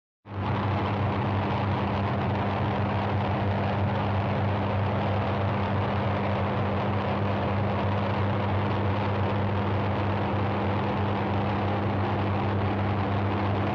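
Steady road and engine noise inside a moving car's cabin: an even rushing noise with a low, constant hum underneath. It starts abruptly just after the opening.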